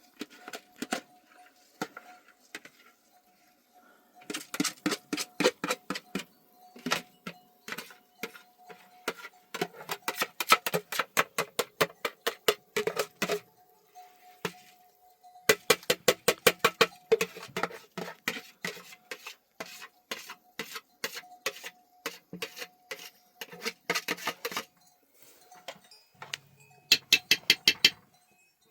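Rapid metallic clinking and clanking in bursts of many quick strikes, with short pauses between bursts and a faint steady ringing tone underneath.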